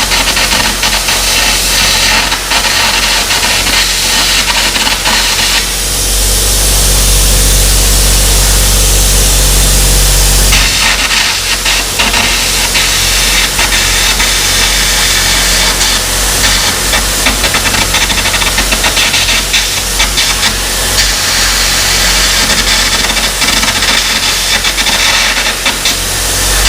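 Carbon arc gouging on a steel dozer frame: the loud crackle of the arc with the hiss of the compressed-air jet blowing out molten metal. About six seconds in the crackle drops out for roughly four seconds, leaving a steadier low hum, then the gouging resumes.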